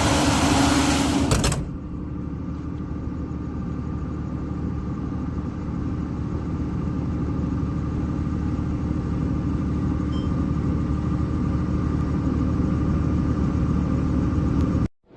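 Baudouin diesel generator set running steadily at no load. About one and a half seconds in, the sound drops suddenly to a quieter, duller, even hum, which cuts off just before the end.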